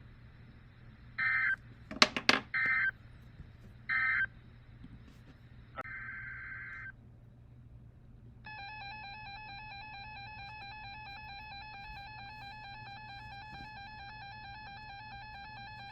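Emergency Alert System signalling tones on a weather radio broadcast. First come three short buzzing data bursts and a sharp click, then a brief steady tone about six seconds in. From about eight and a half seconds on there is a continuous warbling alert tone, the attention signal before a new warning is read.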